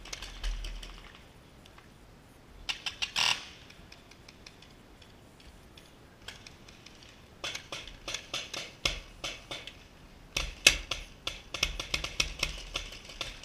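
Paintball markers firing: a short burst of sharp pops about three seconds in, then from about halfway a long run of rapid pops, several a second, the loudest a little past the middle.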